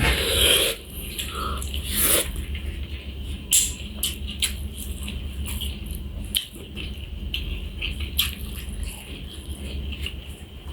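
A person eating close to the microphone: scattered wet clicks and smacks of chewing, over a steady low hum.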